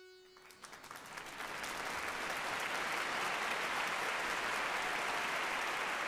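The last held accordion note fades away, then applause starts with a few scattered claps about half a second in and swells into steady, full clapping by about two seconds.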